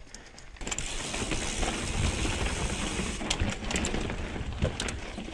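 Trek Remedy 8 mountain bike rolling fast over rock and gravel: a rough rush of tyre noise and wind on the chin-mounted microphone, picking up about a second in. Sharp rattles and knocks from the bike come a little past three seconds and again near the end.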